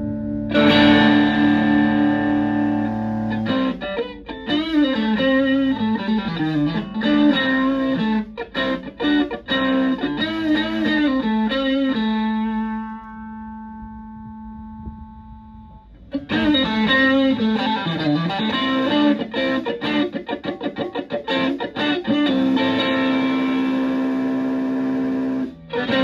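Stratocaster electric guitar played through a Green Snake Tube Screamer-style overdrive pedal into a Fender Twin Reverb-style amp: chords and riffs with bends, while the pedal's gain is swept through its range. Partway through, a chord rings out and fades, then the playing resumes.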